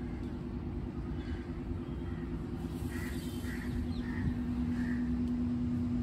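A steady low mechanical hum over a low rumble, with a few faint short bird calls about halfway through.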